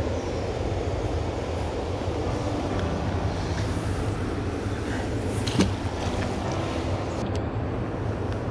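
Steady low outdoor rumble, with one sharp knock about two-thirds of the way through and a couple of faint clicks near the end.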